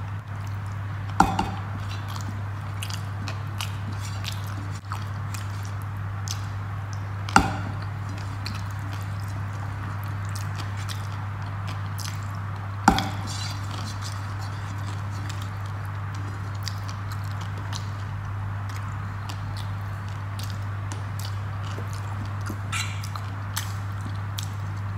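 A person eating rice by hand: wet chewing and finger-licking mouth sounds, with three sharp clicks about a second, seven seconds and thirteen seconds in. A steady low hum lies under it all.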